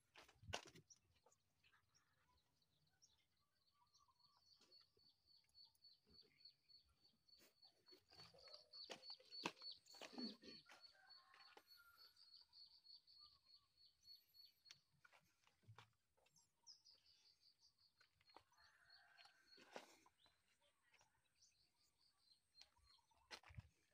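Near silence: a faint outdoor background with a high, rapid, steadily pulsing trill that runs for most of the time and breaks off briefly in the middle, with a few light clicks.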